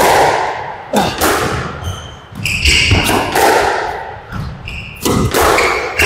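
Squash rally: sharp cracks of the racket striking the ball and the ball hitting the court walls, about one a second, each ringing on in the enclosed court, with short high squeaks of court shoes on the floor in between.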